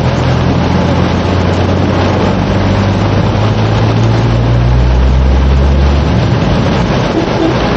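Car driving in heavy rain, heard from inside the cabin: a steady hiss of rain on the roof and windscreen and water under the tyres over a low engine hum, which swells between about four and six seconds in and then eases off.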